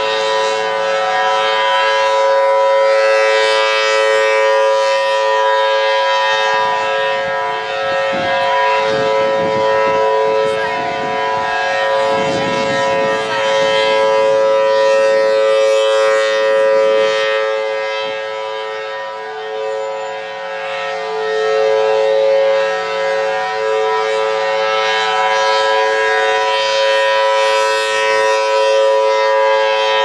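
Federal Signal Thunderbolt 1000T rotating dual-tone civil defense siren sounding a steady two-pitch tone during a test. It is loud throughout and fades once past the middle as the rotating horn turns away, then swells again.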